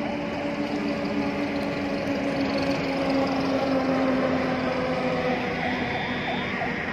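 Road traffic at night: the engine drone of passing heavy vehicles, its pitch sinking slowly, over a hiss of tyre noise.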